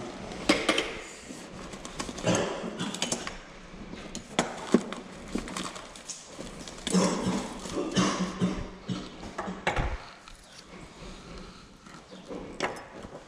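Irregular knocks, clinks and rustles of hands handling gear while unhooking a crappie: rummaging in a bag for pliers, metal clinking on a wooden bench.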